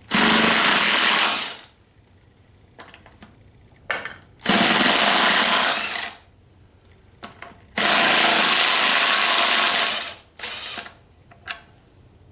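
Power wrench running in three bursts of about one and a half to two and a half seconds, then a short fourth burst near the end, spinning out the bolts that hold the NP208 transfer case halves together.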